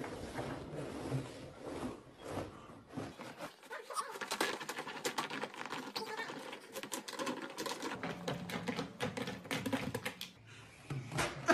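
Small pet-door flap clicking and clattering in its frame, fast and irregular, as a cloth is pushed through it. It starts about three seconds in and stops shortly before the end.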